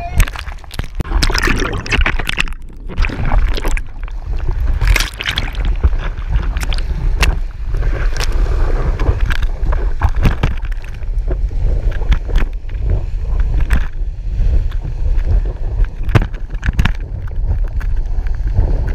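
Whitewater of a small breaking wave rushing and splashing around a surfboard as it is caught and ridden, with spray striking close to the microphone in many sharp hits. A constant low wind rumble on the microphone underlies it.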